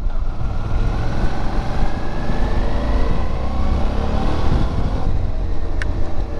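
Suzuki V-Strom motorcycle's V-twin engine running on the road, its pitch rising steadily over the first few seconds as it accelerates. A short click near the end.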